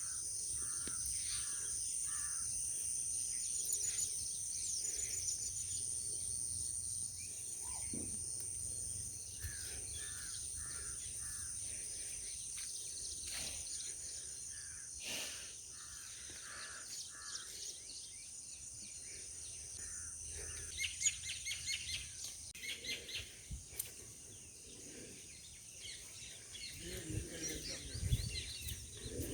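Farmland ambience: birds calling and chirping, with repeated short call notes and some trills, over a steady high insect drone. A few louder low thumps come near the end.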